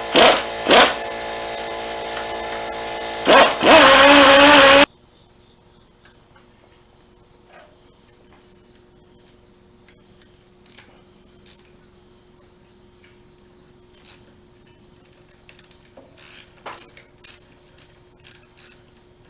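A power tool runs with several short, louder surges, then stops abruptly about five seconds in. After that crickets chirp in a steady, regular pulse over a faint hum, with scattered light clicks of handling.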